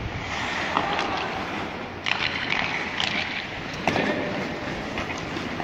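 Ice hockey play: skates scraping and carving across the ice, with a few sharp clacks of sticks and puck.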